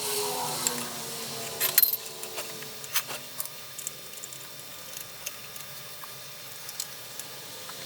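Scattered clicks and knocks of small parts being handled and fitted together while reassembling an old Craftsman router, with a sharper cluster of knocks a little under two seconds in.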